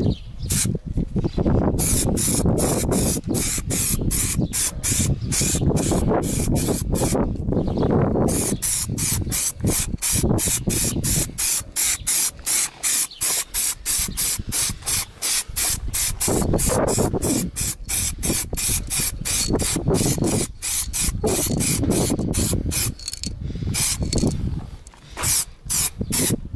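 Aerosol can of clear lacquer hissing as it is sprayed in many short bursts, over a low rumble of wind on the microphone.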